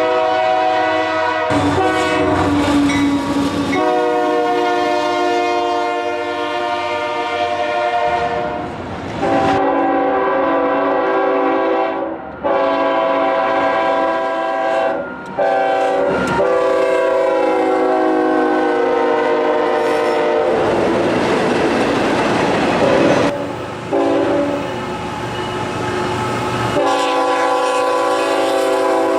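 Locomotive air horn sounding a chord in a series of long blasts with short breaks between them. About two-thirds through, the horn stops for a few seconds and the rumble and clatter of the passing train is heard. The horn comes back near the end.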